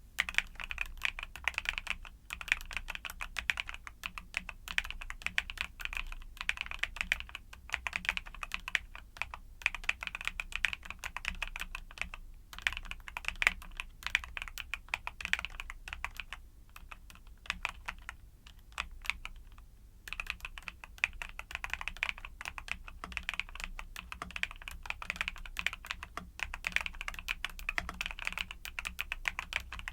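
Typing on a YUNZII mechanical keyboard with Cocoa Cream switches: a fast, continuous stream of key clacks that thins out and grows quieter for a few seconds around the middle before picking up again.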